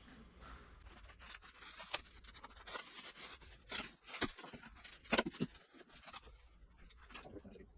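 Faint rustling and light scraping of packaging and parts being handled, with scattered soft clicks and taps, a little louder around the middle.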